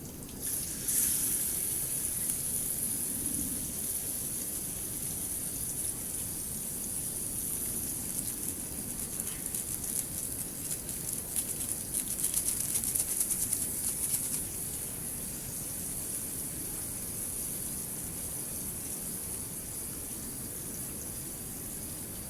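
Steady rushing of water, louder for the first fourteen seconds or so, with a dense patter of fine ticks from about ten to fourteen seconds in.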